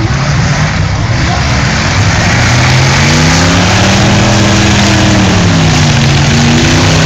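Demolition derby cars' V8 engines running and revving, the engine pitch climbing, dropping back and climbing again near the end, within a dense rough noise.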